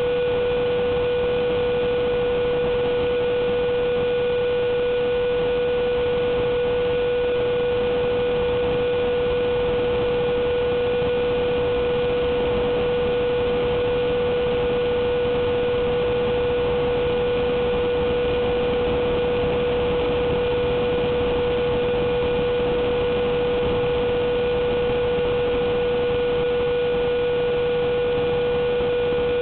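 Electric ducted fan of a Durafly Vampire model jet, heard from on board in flight: a steady whine at one unchanging pitch over a constant rush of air.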